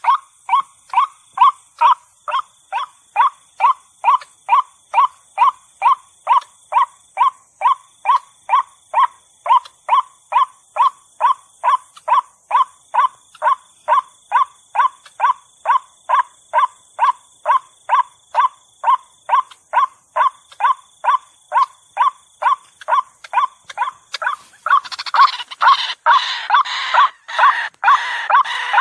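White-breasted waterhen calling: a long, monotonous series of short sharp notes, about two a second. Near the end the notes turn harsher and more crowded, filling the gaps between them.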